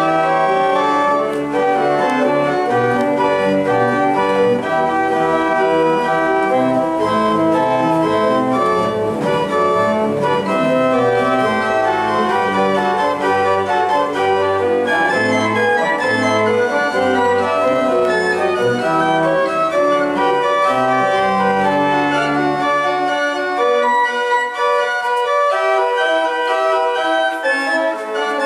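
Organ played with hands on the manuals: sustained chords moving over a deep bass line. About 23 seconds in the bass drops out and only the higher notes carry on.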